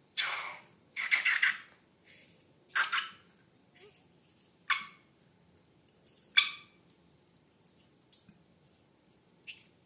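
Slime being handled: a series of short, irregular squishing noises, the loudest in the first few seconds and only a couple of faint ones near the end.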